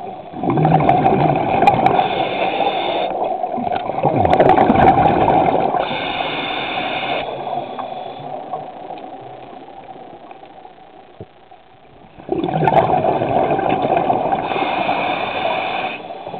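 Water gurgling and rushing in two long surges, the second starting about twelve seconds in.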